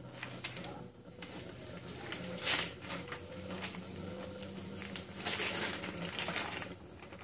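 Transfer tape being peeled back off vinyl lettering on a car's rear window glass and bunched in the hand: short rustling, crinkling strokes, the loudest about two and a half seconds in and again around five seconds in.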